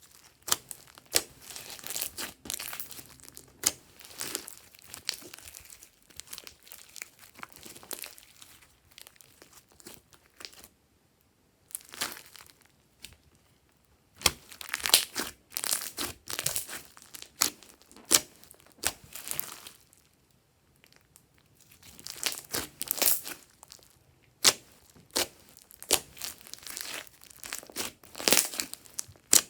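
Glossy slime being squished, stretched and folded by hand, giving irregular sticky crackles and pops in bursts, with a brief pause about eleven seconds in.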